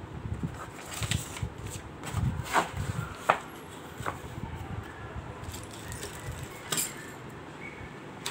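Unpacking handling noises: cardboard packaging being shifted and rustled, with several short sharp clicks and knocks, the loudest about three seconds in.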